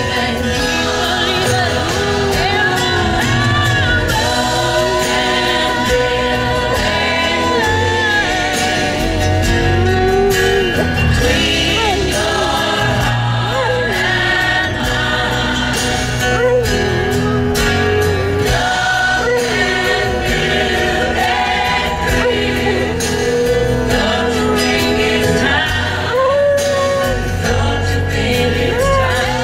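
A song with singing plays on the car stereo, and a beagle howls along with it.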